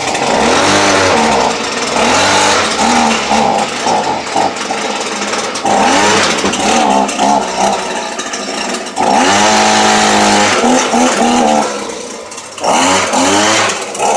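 Stihl BG50 handheld leaf blower's small two-stroke engine running just after a cold start at 10 below zero with the choke off, revved up and down again and again. It drops back briefly about twelve seconds in, then revs up again.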